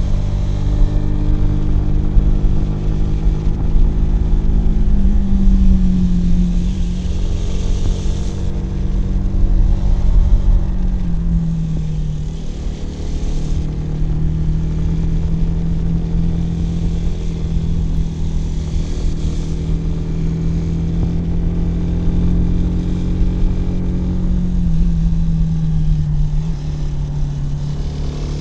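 Kawasaki W175's single-cylinder engine running steadily while riding, its note dipping in pitch briefly a few times, with some rushing wind noise.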